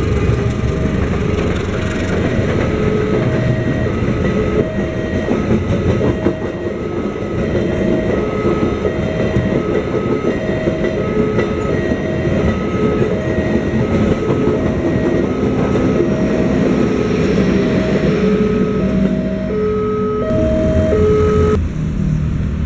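Passenger trains passing over a level crossing, their wheels rumbling and clacking on the rails. Over it the crossing's electronic warning alarm repeats a short beeping tone at a little more than one beep a second.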